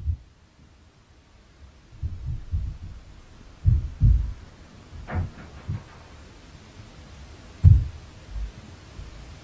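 Inter-floor impact noise from the apartment upstairs: irregular dull, low thuds coming through the ceiling, about nine in all, the loudest a little under 4 s in and near 8 s.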